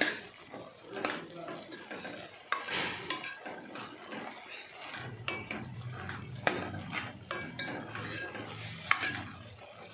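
A steel ladle stirring sweet corn kernels in a metal kadai, scraping through the kernels and clinking against the pan, with several sharp ringing clinks spread through the stirring.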